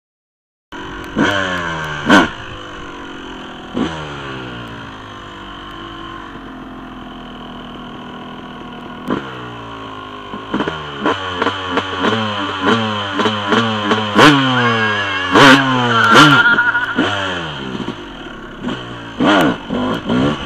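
Yamaha YZ250 two-stroke dirt bike engine idling and being revved in repeated sharp throttle blips, each one falling back to idle. The blips come more often in the second half.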